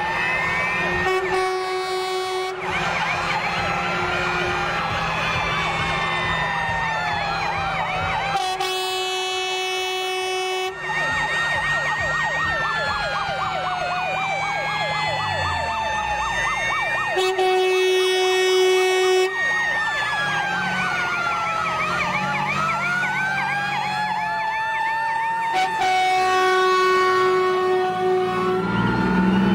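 Several fire engine sirens sounding at once, overlapping slow rising-and-falling wails and fast yelps, as a column of fire trucks passes close by. Four long, steady horn blasts, about two seconds each, cut through about every eight seconds.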